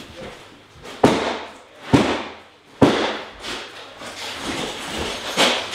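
Three loud bangs about a second apart, each dying away briefly, then a softer knock near the end.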